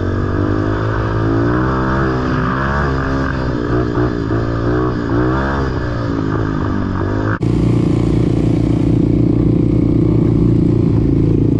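Single-cylinder four-stroke ATV engine running under a rider's throttle, its pitch rising and falling as the quad is ridden along a trail. About seven seconds in the sound changes abruptly to a steadier, slightly louder engine tone.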